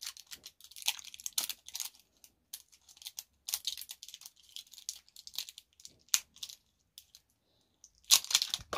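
Thin plastic wrapping on a small LOL Surprise toy ball crinkling and tearing as a child's fingers peel it, in short irregular crackles, with a louder tear near the end.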